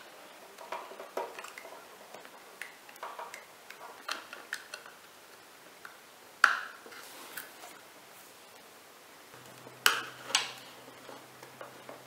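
A WD Blue 2.5-inch SATA SSD being handled, its cables plugged in and the drive pushed into a cramped spot inside a small PC case: scattered light clicks and knocks, with sharper knocks about six and a half seconds and ten seconds in.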